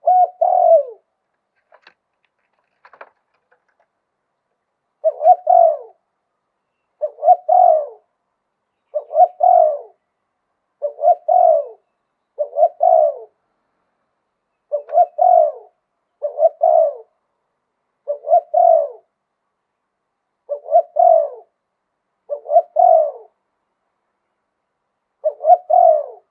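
Spotted dove cooing: a multi-note coo phrase about a second long, ending in a falling note, repeated roughly every two seconds. After the opening phrase there is a pause of about four seconds.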